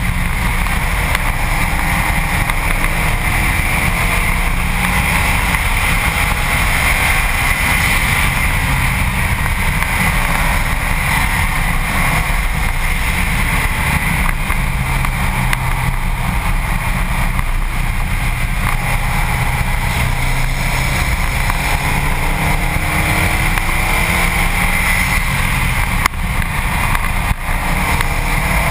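Heavy wind rush and tyre and road noise on a front-bumper-mounted camera of a Subaru WRX STi at track speed. The turbocharged flat-four engine is faintly heard beneath, its pitch rising and falling, and there is a short thump about 26 seconds in.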